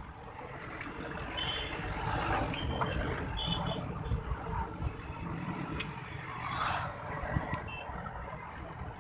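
Street traffic from motorcycles, scooters and cars running past, heard from a moving bicycle, with a few brief high-pitched tones.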